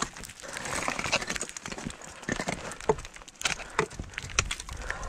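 Ice axe picks striking the ice of a frozen waterfall: a series of irregular sharp knocks, about eight in five seconds.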